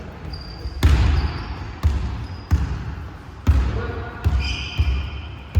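A basketball bouncing on a gym floor, about six hard bounces roughly a second apart, the loudest about a second in. Short high squeaks run between them.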